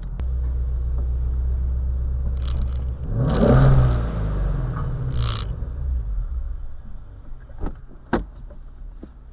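Ford Mustang Shelby GT350's 5.2-litre flat-plane-crank V8 running with its exhaust out of quiet mode, blipped once about three seconds in so the note rises and falls, then settling back. Two short knocks come near the end.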